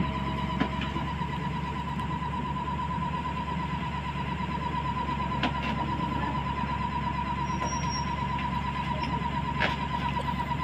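Caterpillar 320 hydraulic excavator's diesel engine idling steadily, with a continuous high-pitched tone over the low engine rumble and a couple of faint clicks.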